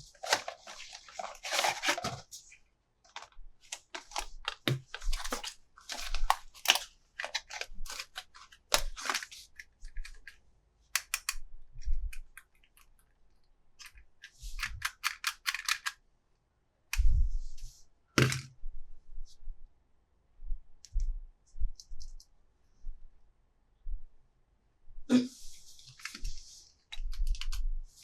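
Plastic toys and their packaging being handled: many small clicks and taps, three short stretches of crinkling plastic, and a couple of heavier knocks about two-thirds of the way through.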